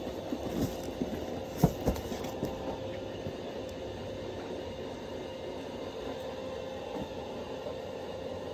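A steady mechanical hum and rumble with a constant faint tone, and two sharp knocks close together about a second and a half in.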